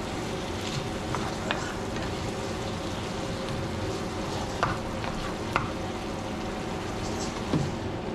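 Sliced onions sizzling in soy sauce in a nonstick frying pan as they are stirred, with a few light taps of the utensil against the pan.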